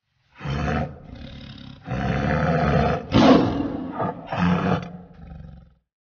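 Tiger roaring in a series of calls, the loudest a little past the middle, then trailing off into a lower rumble that stops short of the end.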